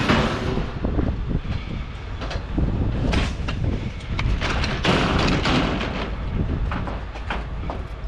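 Scrap metal clanking and banging, many sharp knocks in quick succession over a steady low engine rumble.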